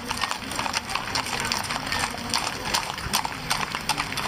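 Hooves of several horses clip-clopping, many sharp hoofbeats falling irregularly and overlapping.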